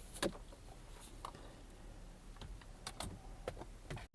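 Scattered light plastic clicks and taps as the back of a car's AC control and radio unit and its wiring connectors are handled.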